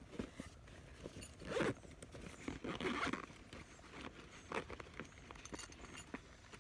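Backpack zipper pulled in a few short strokes, mixed with clicks and rustling as the pack's straps and buckles are handled.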